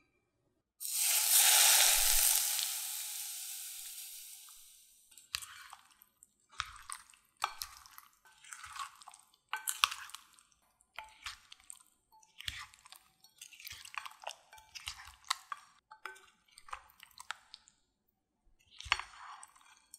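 Hot oil poured over garlic and chili flakes, sizzling loudly at once and fading over a few seconds. Then a wooden spoon tosses soft, oil-coated potato dumplings in a glass bowl: a run of wet squishes and scrapes against the glass, with a short pause near the end.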